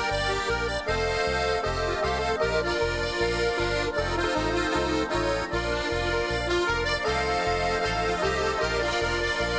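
Accordion-led folk music with a steady bass beat, about three beats a second.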